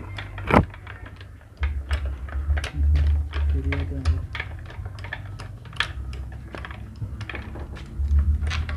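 Irregular sharp clicks and clinks of hand tools and bolts against metal engine parts during work on a Yamaha engine, with a few patches of low rumble.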